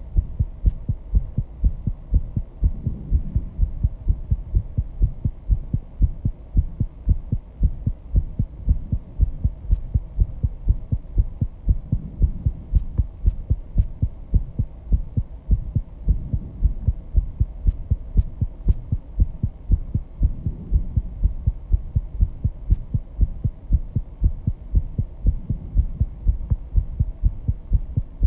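Human heartbeat after intense exercise, amplified through a microphone: a fast, even run of low thumps, the heart rate raised by the exertion.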